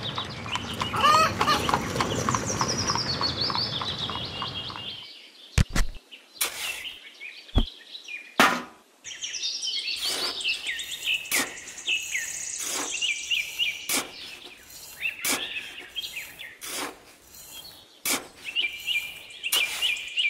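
Small birds chirping, with repeated quick, high, falling chirps, over a steady hiss for the first five seconds. From about five seconds in come sharp clicks and taps of a toy metal shovel scooping cement powder into a small tin bucket.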